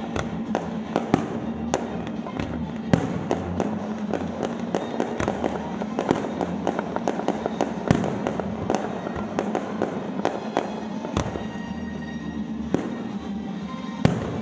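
Fireworks display going off: a dense string of sharp bangs and crackling pops, several a second, with a few louder booms standing out, over music playing underneath.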